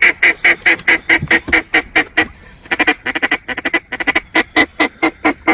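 Mallard duck call blown in a fast, urgent run of short quacks, about six a second, with a brief break about two and a half seconds in: a comeback call to turn a duck back toward the decoys.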